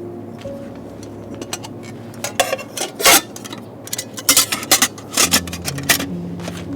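Aluminium camping cookware clinking, knocking and scraping as the pots and lids are handled: a run of sharp metallic knocks starts about two seconds in, the loudest about a second later. Soft background music plays underneath.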